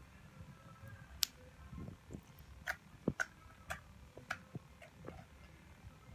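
Thick homemade slime being poked and worked by hand, giving a dozen or so small, irregular sticky clicks and pops.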